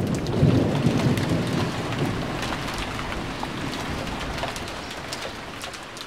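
Rain falling steadily on wet paving and puddles, with fine drop ticks throughout. A low rumble of thunder starts suddenly just before, is loudest in the first second or two, and slowly fades.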